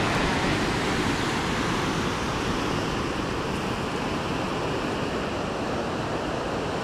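Steady rushing noise of wind and ocean surf, with gusts buffeting at the low end.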